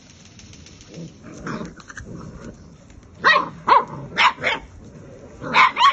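Belgian Malinois puppies yapping and growling while tugging at a rope together. There are four short, sharp barks in quick succession about three seconds in, and another near the end.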